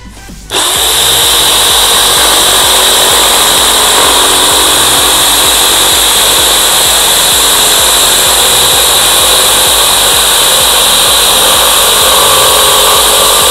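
ZY-1200 corded jigsaw starting up about half a second in and cutting steadily through a thick piece of wood at top speed, a loud continuous saw noise that begins to die away right at the end as the cut goes through.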